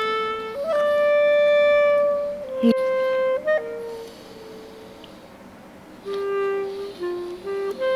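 Background music: a slow melody of long held notes on a woodwind-like instrument. It pauses for about two seconds midway. There is a short sharp click about three seconds in.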